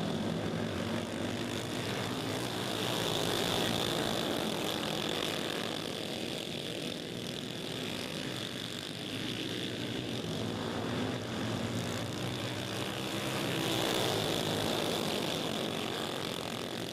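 Several racing go-kart engines buzzing at high revs, swelling twice as the pack comes by and fading between.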